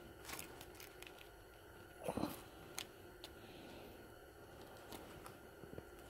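Hands handling parts on a workbench: scattered light clicks and taps, with one louder dull knock about two seconds in and a sharp click just after.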